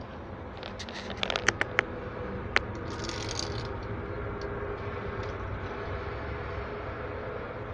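Sharp light clicks and clinks from a wire-cage pendant lamp with stained-glass butterflies being handled and hung up: a quick cluster about a second in, one more a second later, then a brief rustle. Under them runs a steady low background noise.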